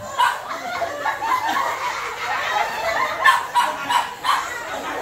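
A lively group of children and adults laughing and chattering over one another, with a few sharp knocks.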